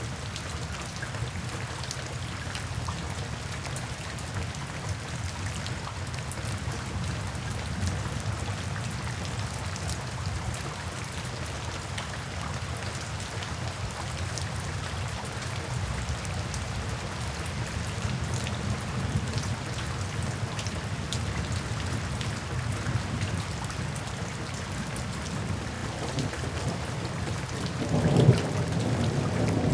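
Steady rain falling, with low rumbling thunder underneath that builds into a louder thunderclap near the end.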